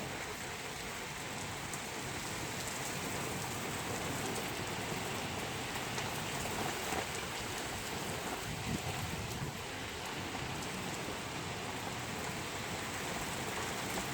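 Steady heavy rain falling and pattering on surfaces in a rain and wind storm, an even hiss with fine drop impacts.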